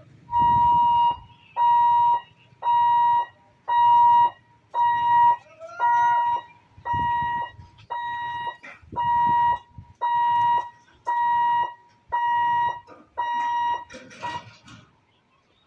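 Railway level-crossing warning hooter sounding a steady electronic beep about once a second, each beep just under a second long, as the gate booms lower for an approaching train. It stops about 14 seconds in.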